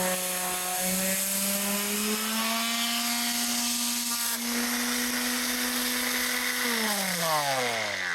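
Electric power sander running with a steady motor whine over a sanding hiss. About seven seconds in the motor is switched off and winds down, its pitch falling away.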